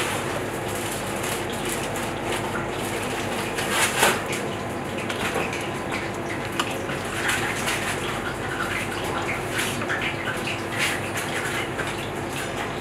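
Commercial kitchen background: a steady hum and rushing from the kitchen equipment and extraction, with scattered light knocks and scrapes, the sharpest about four seconds in.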